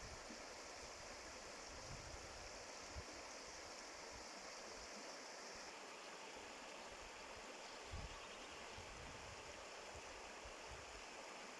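Steady rush of a flowing stream, with a soft low thump about eight seconds in.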